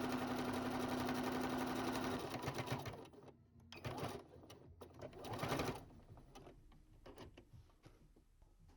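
Sewing machine stitching steadily for about two and a half seconds, then stopping; two brief, softer sounds follow.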